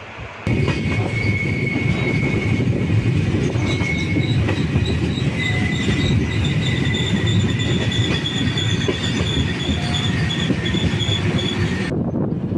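Passenger train running on the rails with a dense, loud rumble, overlaid by high steel-wheel squeal tones that come and go. The sound begins abruptly about half a second in, and the squeal stops near the end.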